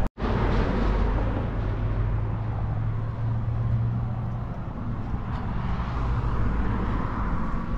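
A vehicle engine running steadily at idle, heard as a low, even hum.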